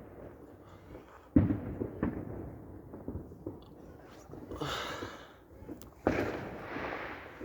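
Fireworks going off: two loud sharp bangs about a second and a half in and about six seconds in, each with a rolling, decaying tail, a smaller bang in between, and a hissing crackle a little before the second bang.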